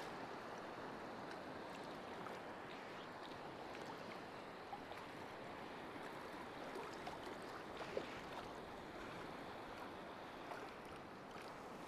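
Small waves lapping and washing in shallow sea water, a steady soft wash with a few faint ticks.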